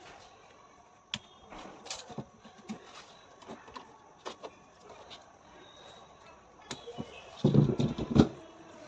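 Scattered clicks and knocks of parts and tools being handled during washing machine repair work, with a louder clatter near the end.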